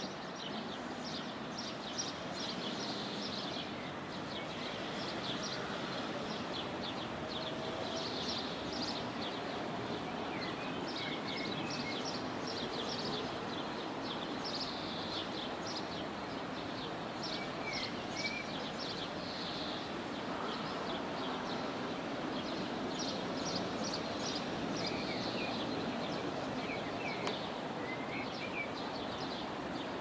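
Steady rush of shallow river water running over stones and riffles, with small birds chirping again and again over it and a few short whistled calls.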